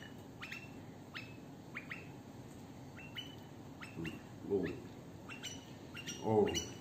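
Pet white-eared bulbul giving a run of short, high, downward-sweeping chirps about once or twice a second while it begs for food. It is joined by a louder, lower sound near the end.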